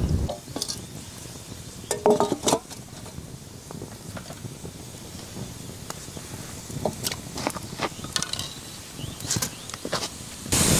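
Small wood campfire crackling in sharp, scattered clicks over a soft low rumble, with a brief cluster of light knocks about two seconds in.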